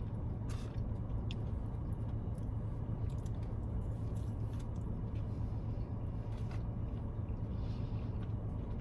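Steady low rumble of a car idling, heard from inside the cabin, with a few faint small clicks.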